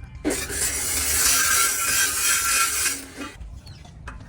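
A power tool cutting through material, running for about three seconds and then stopping, with a steady whine inside the harsh noise.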